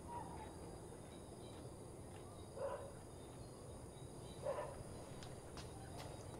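Quiet rural outdoor ambience with two short bird calls, and a few light clicks near the end.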